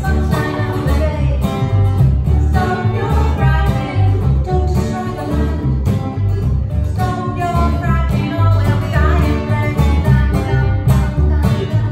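A live acoustic string band playing a country/bluegrass-style tune: an upright double bass plucks low notes under a strummed acoustic guitar and a small plucked string instrument, with a woman singing the lead.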